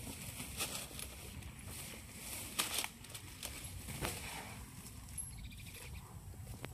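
Asian elephant tearing leafy acacia branches down with its trunk to feed. Leaves rustle and twigs snap in a few sharp cracks, the loudest about two and a half seconds in and again at four seconds.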